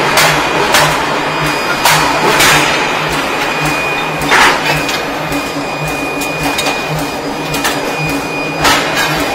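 Forging shop machinery running with a steady, pulsing hum, broken by about six sudden sharp sounds at uneven spacing, most in the first few seconds and one near the end, from a power forging hammer working a red-hot steel ring.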